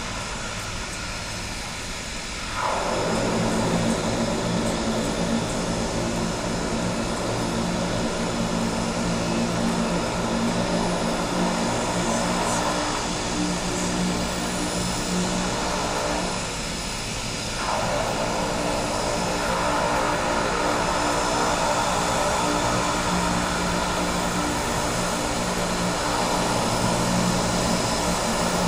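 Propeller engines of twin-engine turboprop floatplanes taxiing on the water: a steady drone with a low hum. It grows louder about two and a half seconds in, eases for a moment a little past halfway, then swells again.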